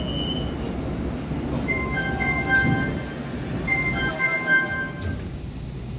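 Subway train door chime, a short electronic phrase of clear tones played twice, over the steady low rumble of the train standing at the platform.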